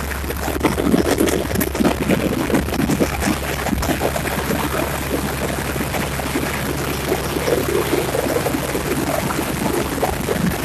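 Helicopter in flight heard from aboard: a steady low engine and rotor hum under a constant rushing noise.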